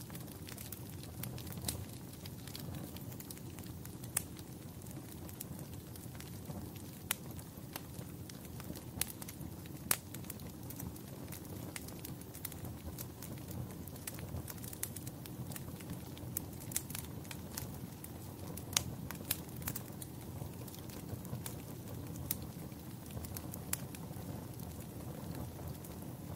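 Fireplace fire crackling: irregular sharp pops and snaps, a few of them louder, over a steady low rumble of the flames.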